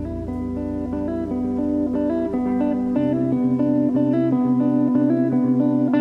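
Background music: a plucked-string instrumental with a steady pattern of notes, and a lower bass line coming in about three seconds in.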